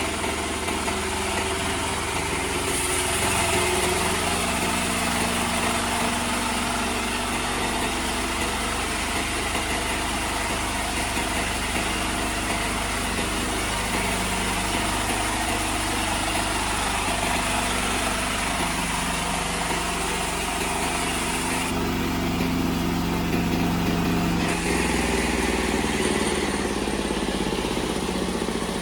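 Horizontal band sawmill driven by a 20 HP diesel engine, running steadily with a dense mechanical hiss over the engine's drone; the high hiss drops back briefly about two thirds of the way through.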